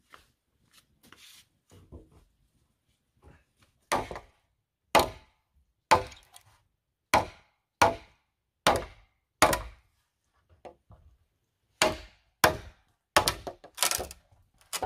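Machete chopping into a green bamboo pole resting on a wooden block. A series of sharp strokes comes about once a second, starting about four seconds in after a few faint knocks, pauses briefly, then comes faster near the end.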